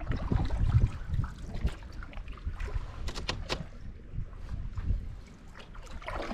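Water lapping and splashing against a canoe hull as it moves downriver, with gusty wind rumbling on the microphone. A few small sharp splashes or ticks come about halfway through.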